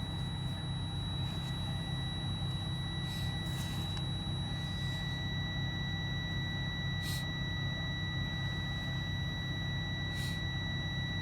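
A steady high-pitched electronic tone held without a break over a steady low hum.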